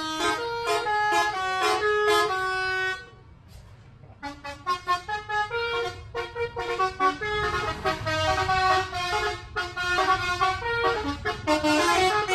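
Bus telolet horn, a set of tuned air-horn trumpets, playing a quick tune of short stepped notes. It breaks off about three seconds in for about a second, then starts again over the low rumble of the bus.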